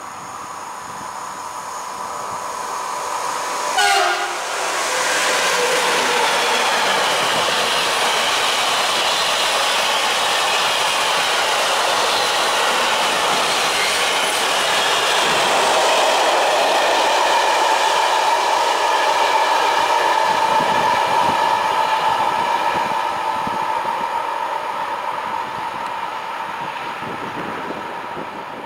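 Siemens Vectron electric locomotive hauling a freight train of car-carrier and tank wagons through a station at speed. A short horn blast sounds about four seconds in as it approaches. It is followed by the steady rolling rumble and clatter of the wagons passing, which fades near the end.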